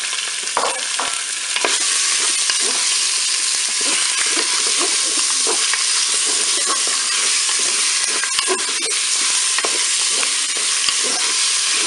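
Chunks of raw chicken sizzling steadily in hot olive oil in the bowl of a Cookeo multicooker on its browning setting. A wooden spoon scrapes and knocks against the bowl as the pieces are stirred.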